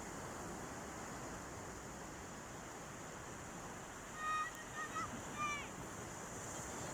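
Steady rush of sea waves on the shore, with a run of short pitched calls, likely a bird, about four to five and a half seconds in.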